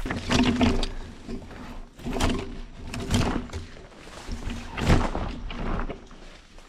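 A person clambering down a steep, brushy slope: irregular footfalls and thuds on dirt and rock, with leaves and branches rustling against the body and pack. The heaviest steps come about half a second, two, three and five seconds in.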